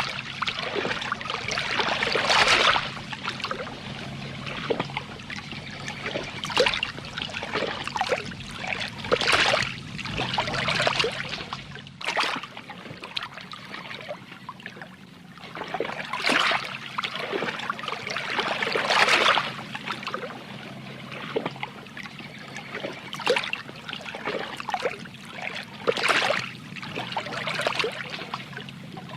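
Water sloshing and trickling in irregular surges every second or two, over a low steady hum that stops about twelve seconds in.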